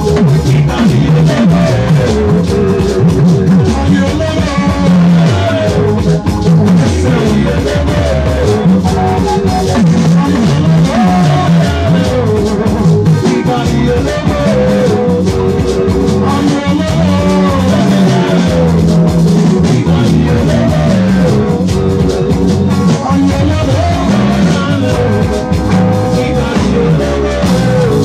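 Live band playing dance music: electric guitar lines over a drum kit keeping a steady beat.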